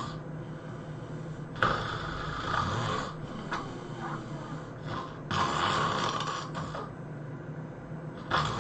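A person snoring loudly: three long, harsh snores about three seconds apart, with quieter breathing between them.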